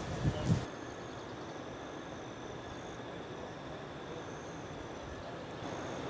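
Steady outdoor background noise, an even hiss with a faint high whine that comes and goes, after a few short loud bumps in the first second.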